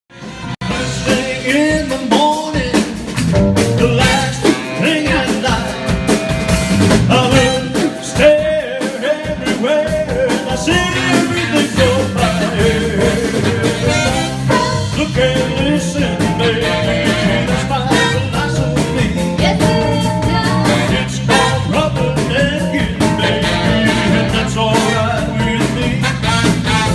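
Live band with a horn section playing an upbeat rock-and-roll number: drums striking a steady beat over a strong bass line, with guitar and horns, at full volume from about half a second in.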